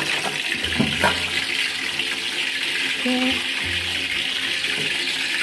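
Chicken feet frying in hot oil in a wok under a lid: a steady sizzling hiss, with one sharp pop about a second in.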